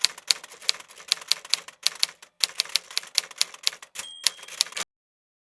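1912 Blickensderfer No. 6 typewriter being typed on: quick runs of sharp key clicks, about five a second, with a short ringing tone about four seconds in. The typing cuts off abruptly near the end.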